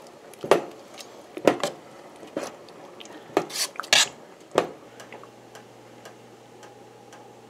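A spoon stirring thick apple butter, clinking and scraping against the side of a stainless steel stockpot in a series of sharp knocks. The knocks stop about five seconds in.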